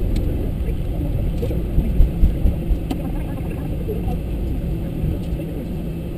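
Steady low rumble in the cockpit of an Airbus A340-300 rolling out after landing, slowly fading as the aircraft slows and turns off the runway. A light click about three seconds in.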